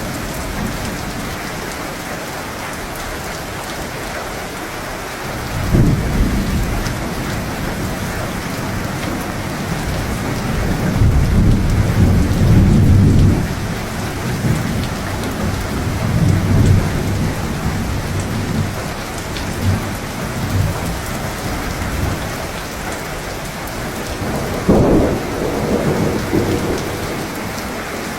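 Steady heavy rain with thunder: a sharp rumble about six seconds in, a longer rolling rumble a few seconds later, and a sharper thunderclap near the end.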